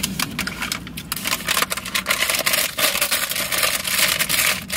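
Paper fast-food bag rustling and crinkling as it is handled, a steady run of dense crackles.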